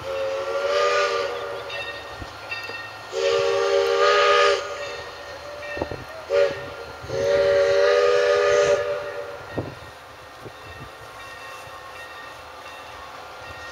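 Steam locomotive's chime whistle blowing four blasts, long, long, short, long: the signal for a road crossing. After that the train runs on more quietly, with a few knocks.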